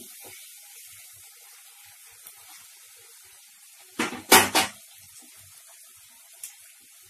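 Onion paste frying in oil in a pan with a faint, steady sizzle. About four seconds in, a utensil knocks and scrapes against the pan three times in quick succession.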